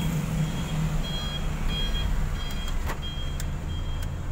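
Cabin sound of a Honda Mobilio on the move: a steady low rumble of its four-cylinder engine and the road. Over it, a short high beep repeats about twice a second, some beeps longer than others.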